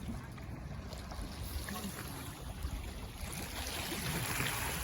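Small waves washing onto the shore, with wind rumbling on the microphone; the hiss of the surf swells about three seconds in.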